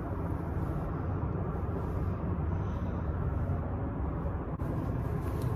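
Strong wind buffeting the microphone: a steady, uneven low rumble.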